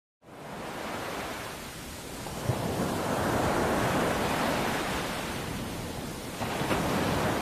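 Ocean surf: a wave washing in, a rushing noise that builds to a peak mid-way and then eases off.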